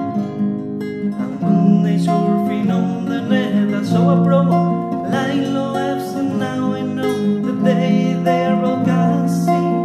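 A song: strummed acoustic guitar accompanying a voice singing in Catalan.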